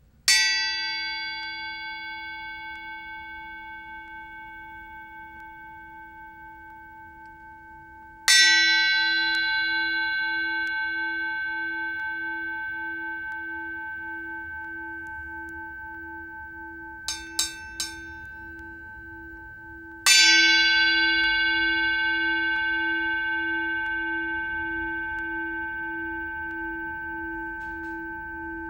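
Zildjian FX Zil-Bel 9.5-inch bell cymbal struck three times with a drumstick, about eight and twelve seconds apart. Each hit rings on with a long, slowly fading bell-like tone of several steady pitches. Three quick, faint clicks come shortly before the third hit.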